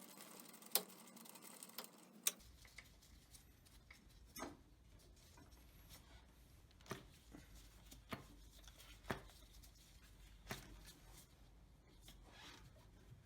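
Near silence broken by light, sharp clicks and taps, about seven of them at irregular intervals of one to two seconds.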